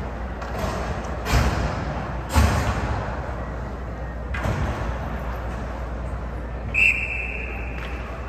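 Three hard slams against the ice rink's boards, each ringing on in the big arena, then a shrill referee's whistle of about a second near the end.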